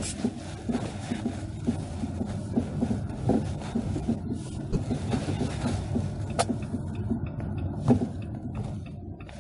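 2018 Jeep Compass driving with a steady low road rumble and repeated clunking knocks from the suspension, two or three a second, with a couple of sharper clicks: the sign of worn stabilizer (sway bar) links.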